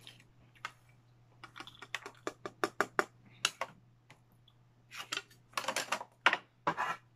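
Quick, irregular clicks and taps of a small jar being handled, its lid worked by hand, over a low steady hum.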